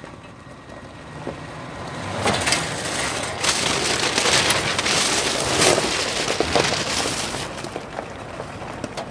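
A 1977 Jeep J10 pickup's tyres crunching and crackling over loose river stones as the truck drives up and passes close by, growing louder about two seconds in and easing off near the end.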